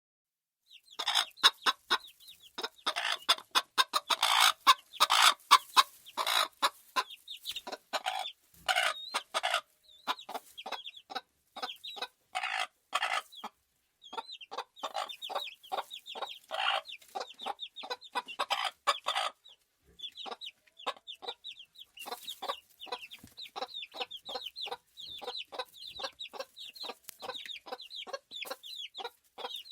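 A flock of farm chickens clucking: many short, overlapping calls in quick succession, densest in the first few seconds and thinning to steadier rapid clucking later.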